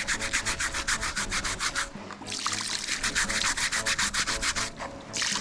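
Rapid rhythmic rubbing or scrubbing strokes, about eight a second, breaking off briefly twice.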